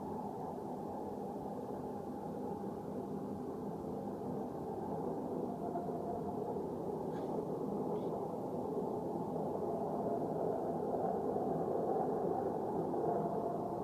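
Steady low roaring drone of unknown origin, part of the 'strange roaring noise' phenomenon. It grows slightly louder over the second half. The person recording insists it is not a plane.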